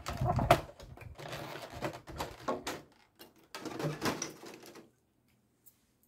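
Packaging of a perfume and body lotion set being handled and unpacked: a quick run of rustles and clicks that stops about five seconds in.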